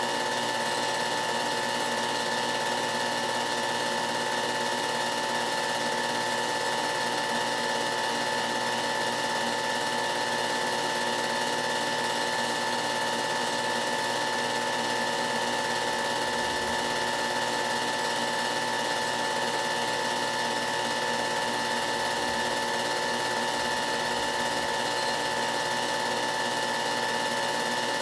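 Film projector running: a steady mechanical whir with a constant hum of several fixed tones, unchanging throughout.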